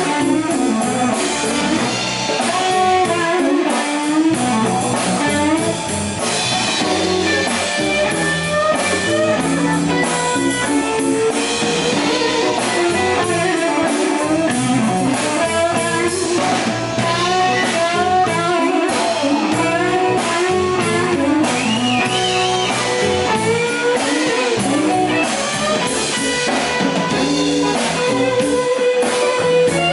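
Live blues band playing an instrumental passage: an electric guitar plays a lead line with bending notes over electric bass and a drum kit.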